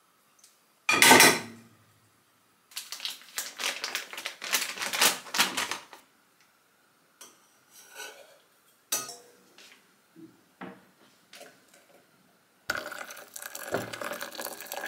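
Hard objects clinking and clattering as they are handled, in several bursts, with a louder knock about a second in.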